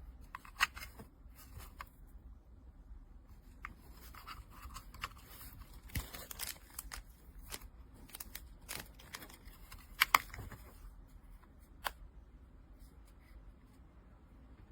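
Handling noise close to the microphone: scattered small clicks and scrapes, with a few sharper clicks, about half a second in, in the middle, a close pair after ten seconds and one near twelve seconds.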